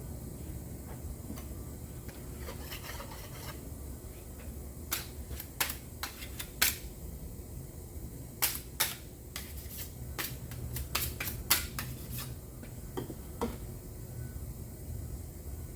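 Bondo body filler being worked with a spreader: a brief rubbing scrape about three seconds in, then a string of sharp clicks and taps through the middle.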